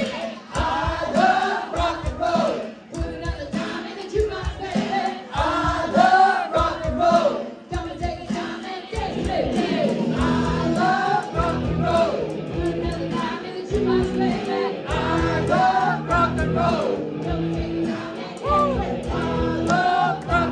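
Live cover band playing a rock song through the PA: a woman singing lead over electric guitars and keyboard, with a steady beat and crowd noise mixed in.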